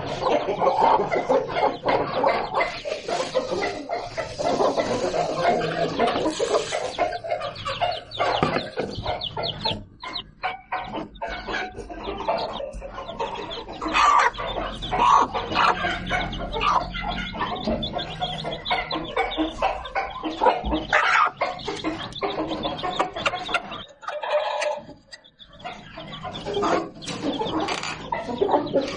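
Aseel chickens clucking almost without pause, mixed with the short peeps of chicks. The calling drops away briefly about ten seconds in and again about twenty-five seconds in.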